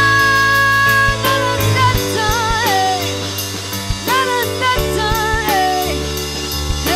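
A young woman singing a pop-rock song over a Hammond SK1 keyboard and a drum kit. She holds a long high note for about the first second, then sings shorter phrases while the drums keep a steady beat and the keyboard sustains chords and bass.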